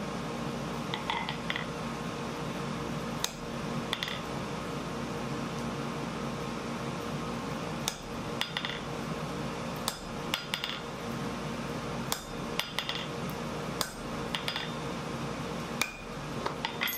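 A hand hammer striking hot steel on an anvil, working a punch into the glowing blank. Sharp metallic strikes come at uneven intervals, a dozen or more, some with a short ring, over a steady hum.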